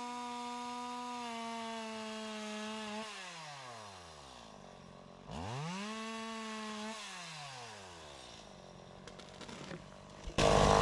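Two-stroke chainsaw held at high revs for about three seconds, then let down to idle, revved up again briefly and let back down to idle. Near the end a sudden loud, wide noise cuts in.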